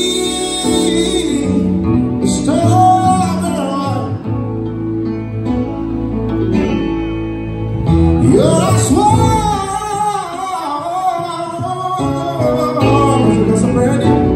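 Live band performance: a male singer singing into a microphone, backed by electric keyboard and guitar, heard through the stage PA. The vocal comes in sung phrases with short gaps between them over sustained chords.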